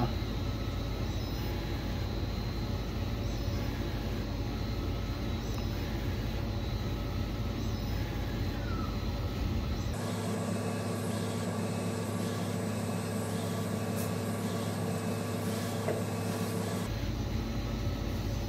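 Roland UV flatbed printer running while it prints onto metal pin blanks: a steady mechanical hum with several constant tones from its fans and carriage drive. The hum changes character abruptly about ten seconds in, losing its lowest rumble, and changes back about seven seconds later.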